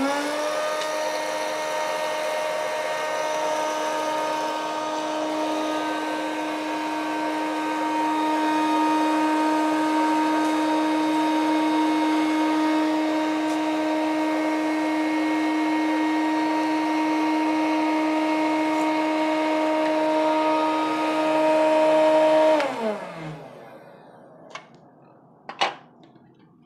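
Electric hot-air snack and popcorn maker's fan motor spinning up at the start and then running with a steady humming whir while it roasts a batch of vadiyalu without oil. About three-quarters of the way in, the motor winds down, falling in pitch, and stops. A few light clicks follow near the end.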